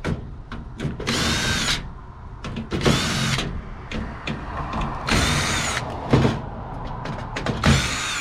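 Cordless power drill/driver run in four short bursts, its motor whining up to speed and winding down each time, as it drives screws out of a computer case.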